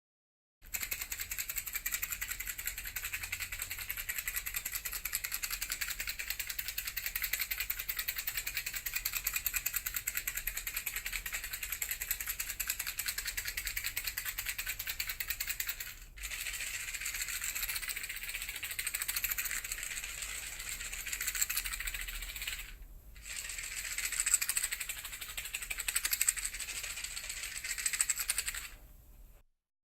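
A box of matches being shaken, the matches rattling inside it. The shaking is fast and even for about fifteen seconds, then after a brief stop it turns slower and uneven, with another short pause before the end.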